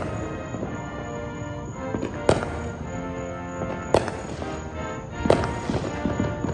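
Background music of held tones, punctuated by sharp percussive hits about every one and a half to two seconds.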